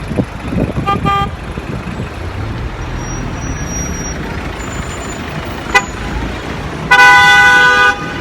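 Street traffic running, with a vehicle horn: a short toot about a second in, then one loud, steady honk lasting about a second near the end.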